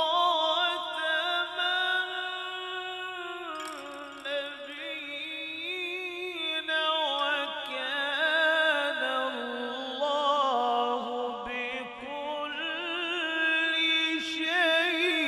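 A man reciting the Qur'an in slow, melodic tilawat style, drawing out long held notes with wavering ornaments; the pitch steps down about three and a half seconds in.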